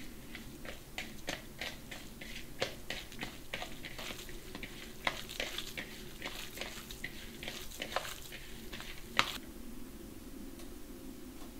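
Hands kneading raw ground beef mixed with egg and chopped onion in a glass bowl: rapid wet squelches and sticky clicks that stop about nine seconds in, the last one the loudest.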